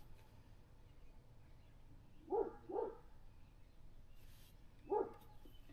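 A dog barking: two short barks about two seconds in, then one more near the end.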